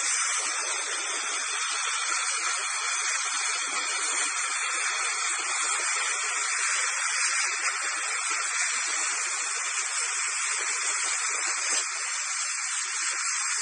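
Dental air-polishing (Airflow) handpiece spraying a continuous jet of air, water and baking-soda powder onto the teeth to blast off stains: a steady hiss.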